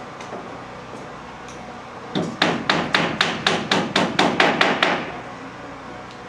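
Hammering on construction work: a quick, even run of about a dozen sharp, ringing hammer blows, about four a second, that starts about two seconds in and stops about five seconds in.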